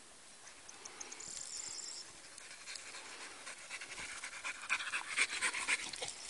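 Young German wirehaired pointer (Drahthaar) panting after running a hare track, quick repeated breaths that grow louder over the second half as the dog comes right up close.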